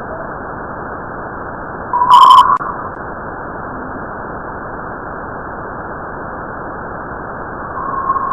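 Space-sound recording of planetary radio emissions turned into audio: a steady, muffled static hiss. About two seconds in comes one brief, loud tone, and a steady tone comes in near the end.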